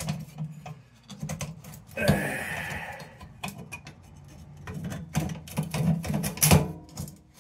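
Metal and glass clicking, knocking and rattling as an old Embury hot-blast lantern is handled and its glass globe is worked out of the wire frame, with a scraping rub about two seconds in and a run of louder knocks near the end.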